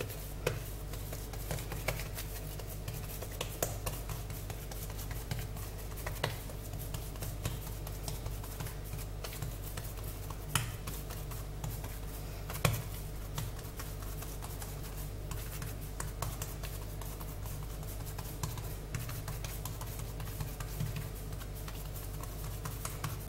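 Hands pressing and patting bread dough flat on a granite countertop: scattered soft pats and taps, with a couple of sharper knocks, over a steady low hum.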